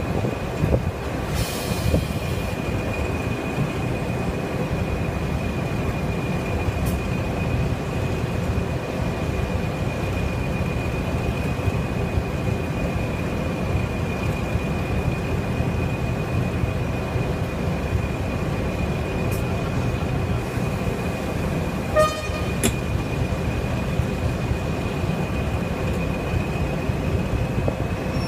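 Class 20 diesel locomotive's English Electric eight-cylinder turbocharged engine idling while the train stands, heard close up: a steady low rumble with a constant high turbocharger whistle. A brief click comes about 22 seconds in.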